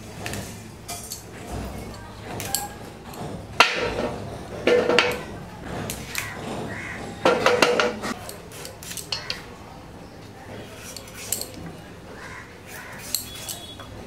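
Metal cooking utensils and pots clinking and clattering in short knocks, loudest around four, five and seven seconds in.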